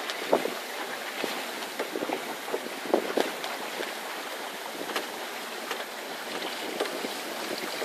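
Water rushing and splashing along the hull of a small sailing boat under way, with wind noise and irregular short slaps and clicks.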